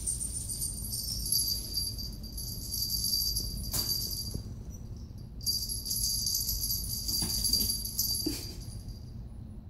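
Small bells on kittens' collars jingling steadily as the kittens move and play, stopping briefly about halfway through and fading near the end. A few soft taps sound between the jingles.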